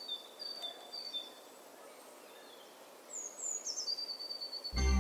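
Birds chirping over a faint outdoor hiss: a quick repeated two-note chirp, then a few falling chirps about three seconds in. Music starts just before the end.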